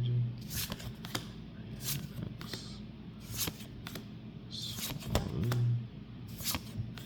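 Pokémon trading cards being handled and flipped through, one slid behind another, making a string of sharp flicks and light rustles.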